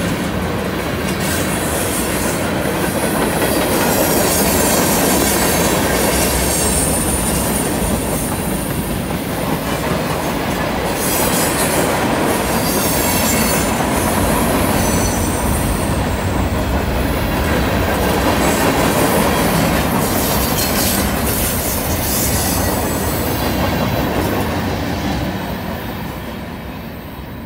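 Freight train cars rolling past on a curve: a steady rumble of steel wheels on rail, with high-pitched wheel squeal coming and going. The sound fades near the end as the last cars pull away.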